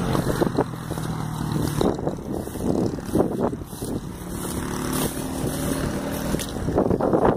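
Footsteps and rustling through dry grass and weeds, irregular crackles with a louder cluster near the end, over a steady engine drone whose pitch shifts upward partway through.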